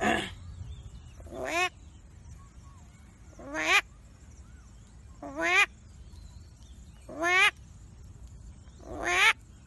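A man imitating the call of a western tragopan with his voice: a series of about six short calls, each rising in pitch, repeated roughly every two seconds.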